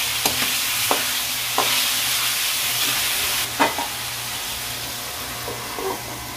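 Chopped pork and pork fat frying in a metal wok, a steady sizzle, with a metal ladle scraping and knocking against the pan a few times. The sizzle turns softer in the second half as the wok is covered with its lid.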